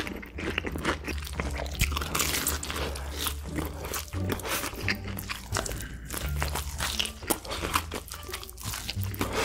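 Close-miked eating of crispy fried chicken: crunchy bites and chewing, a dense run of irregular crackles.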